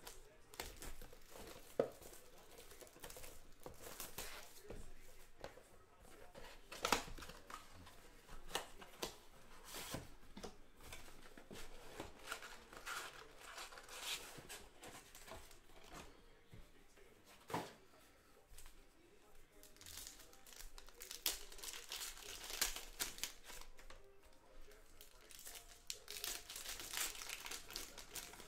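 Plastic shrink wrap and foil trading-card pack wrappers crinkling and tearing as a sealed box of Topps Chrome cards is unwrapped and opened, with sharp clicks from the cardboard box and packs being handled.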